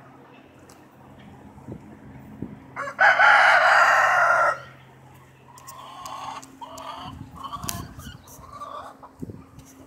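A rooster crows once, loud, for about a second and a half, starting about three seconds in. Several shorter, softer clucking calls follow.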